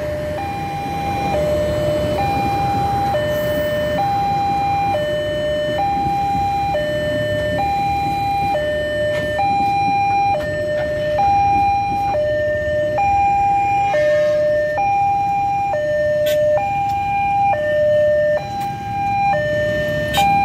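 Len level-crossing warning alarm sounding a two-tone high-low signal that switches pitch about once a second, over the rumble of a passing passenger train's carriages.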